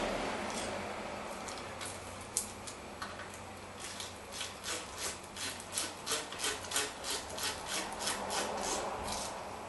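A ratchet wrench clicking in quick, even strokes as it tightens the brake caliper's Allen-head slide pin bolts. A few scattered clicks come first; from about four seconds in they settle into a steady run of about three a second.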